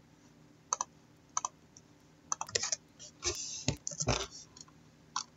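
Irregular computer keyboard typing and clicks, a few scattered keystrokes with a denser flurry in the middle.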